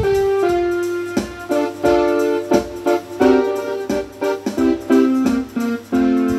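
Electronic keyboard played in a piano-like voice: a melody over chords, the notes changing several times a second, with a steady low hum underneath.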